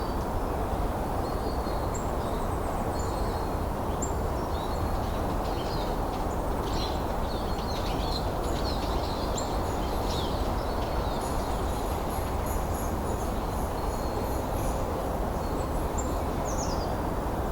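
Steady wind noise with small birds chirping and trilling over it, busiest in the middle, with thin high twittering in the second half.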